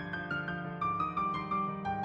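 Background music: a piano playing a slow melody over held chords, a new note about every half second.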